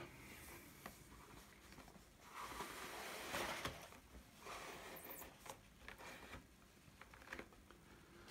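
Cardboard packaging handled: the inner tray of a model locomotive box slides out of its card outer sleeve with a soft scraping rustle about two seconds in, then a shorter rustle and a few light taps as the box is moved.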